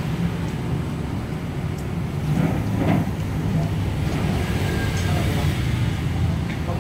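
Steady low mechanical rumble, with a few faint clicks over it.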